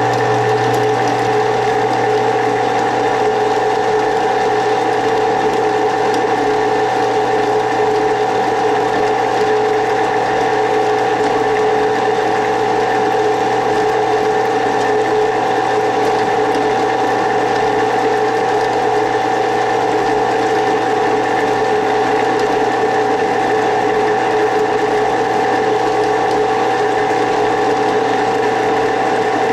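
Benchtop drill press motor running at a steady speed with a constant hum and whine while a number 29 twist drill bores into an aluminium block.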